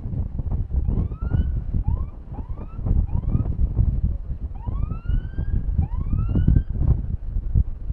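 Heavy wind buffeting the microphone, with a siren sounding through it in about six short wails that rise in pitch.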